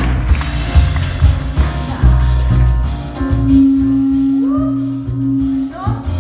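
A live band plays an instrumental passage of a jazzy cabaret number, with a steady bass line and drums. A long low note is held through the middle, and a couple of short sliding notes come near the end.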